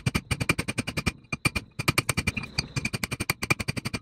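Rapid, steady hammer blows on steel, about seven a second, each with a ringing metallic tone, with two brief pauses. The hammer is driving a 1997 Honda Accord's front wheel hub the last few millimetres into its wheel bearing in the steering knuckle, without a press.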